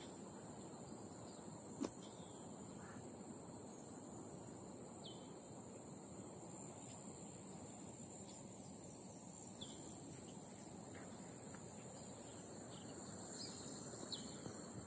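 Faint, steady high-pitched drone of crickets or other insects, with a few short, falling bird chirps scattered through it and one sharp click about two seconds in.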